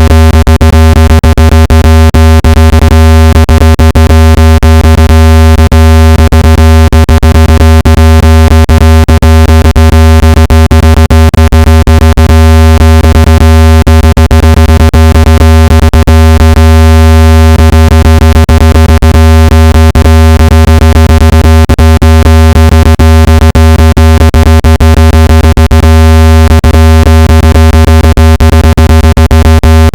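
Loud, steady, low-pitched synthetic buzzing tone with many overtones above it, flickering rapidly: a speaker-cleaning sound played to vibrate dust and moisture out of a phone speaker.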